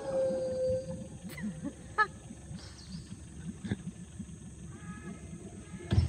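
Mantled howler monkeys calling in the canopy: a held howl trails off in the first second, followed by several short, scattered calls over a low, continuous rumble. A sharp knock lands right at the end.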